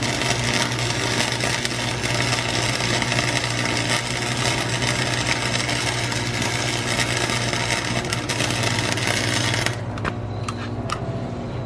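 Electric arc welding on a steel dirt bike shift lever: a continuous dense crackle of the arc that stops abruptly near the end, followed by a few sharp clicks over a steady low hum.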